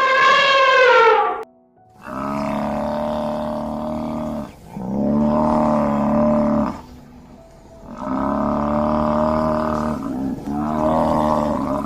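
An animal calling: a short cry falling in pitch at the start, then four long, drawn-out calls of about two seconds each with short pauses between them.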